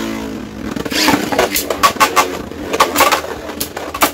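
Two Beyblade Burst spinning tops whirring in a plastic stadium, then clashing again and again, with many sharp irregular clicks and knocks from about a second in.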